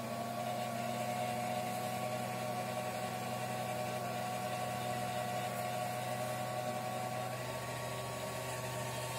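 Motor drive of a filament extruder and spool winder running with a steady whine over a low hum. The whine rises slightly right at the start and steps up in pitch about seven and a half seconds in, as the speed knob is turned.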